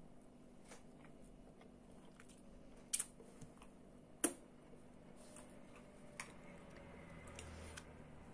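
Faint chewing and wet mouth noises, broken by a few sharp clicks and smacks, the two loudest about three and four seconds in.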